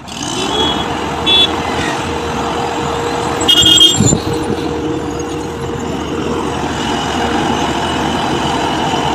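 Heavy road-construction machinery running steadily, with short horn toots about a second in and again, louder, around three and a half seconds in.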